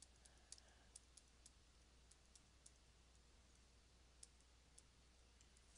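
Near silence with faint, scattered clicks of a stylus tapping on a tablet while handwriting, most of them in the first three seconds.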